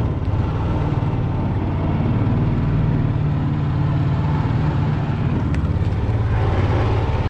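A small boat's outboard motor running steadily with a low, rapidly pulsing hum, as the boat eases up to a downed duck to pick it up.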